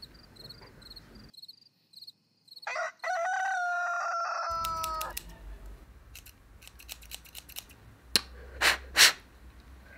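Crickets chirping at first, then a rooster crowing once, one long call about three seconds in that rises and then holds, falling slightly. Near the end, small scissors snipping, with light clicks and then three loud snips.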